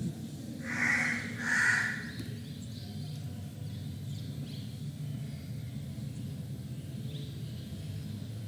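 A crow cawing twice in quick succession about a second in, harsh calls over a steady low background hum.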